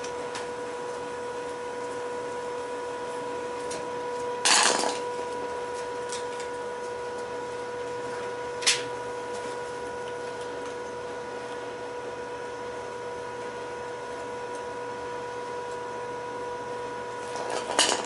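Screwdriver and metal parts of a furnace blower motor clinking and clattering against each other and the concrete floor during disassembly: a short clatter about four seconds in, a single sharp click near nine seconds, and another clatter at the end, over a steady hum.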